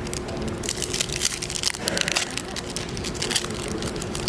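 Foil booster pack wrapper crinkling and tearing as it is opened, with dense, irregular crackles throughout.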